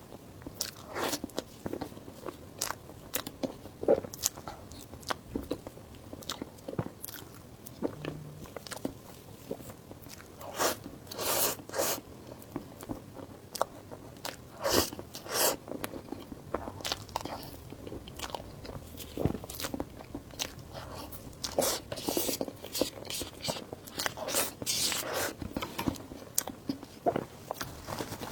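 Eating sounds: a person biting and chewing crunchy food, with irregular crunches and clicks.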